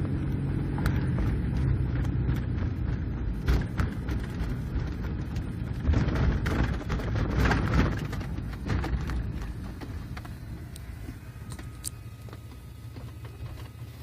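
1999 Chevrolet Blazer's 4.3-litre V6 accelerating from a stop while its automatic transmission shifts up through the gears too quickly. The early, harsh shifts come from a faulty 4x4 transfer-case module falsely signalling four-low to the engine computer. A few knocks sound in the first half, and the engine sound eases off after about eight seconds.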